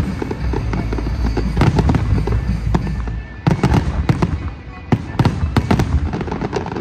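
Fireworks display going off: many sharp bangs and crackles in quick succession over a low rumble, thinning to separate bangs after about three seconds.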